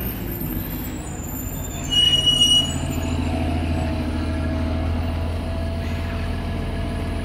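City buses running close by with a steady low engine hum. About two seconds in, a brake squeals briefly at a high pitch, the loudest sound here.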